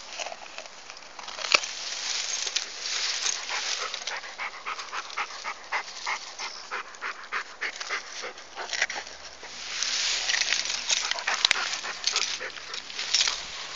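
A dog chewing and crunching sugarcane: a long string of sharp, crunching bites, thickest through the middle.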